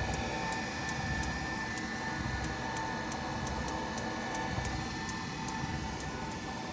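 Treadmill running, its motor giving a steady hum and whine, with light clicks repeating about two to three times a second. The clicking is the unwanted noise the treadmill is making.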